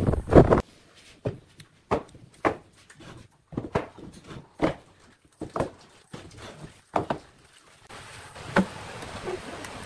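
Small wooden blocks clacking as they are set down and knocked together on a plywood tabletop: about a dozen irregular sharp knocks. A burst of loud wind-like noise cuts off about half a second in, and a low steady hiss takes over near the end.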